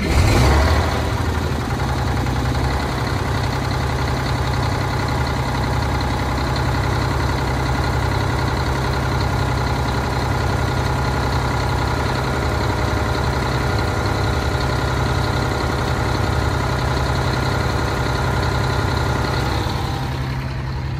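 1989 Crown Super Coach's diesel engine just started, a little louder in the first second and then idling steadily, while the air system builds pressure with the leaking air line capped.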